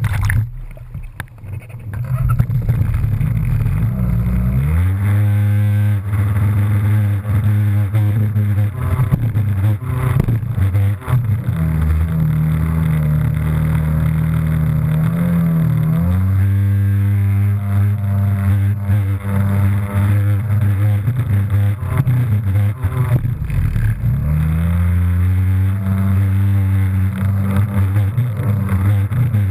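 Jet ski engine running at speed, its pitch climbing and then holding several times as the throttle is worked, with water rushing and splashing. Near the start the sound is briefly muffled as water washes over the microphone.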